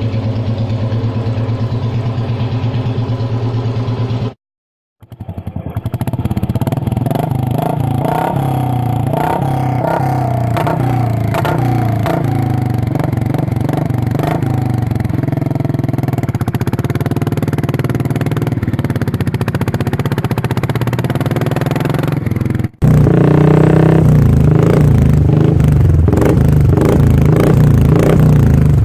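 Royal Enfield Bullet single-cylinder engines running through different aftermarket exhausts, one clip after another. The first idles steadily with an even thump and cuts off about four seconds in. After a brief silence a second bike idles and is blipped, its pitch rising and falling. Near the end an abrupt switch brings in a third, louder exhaust.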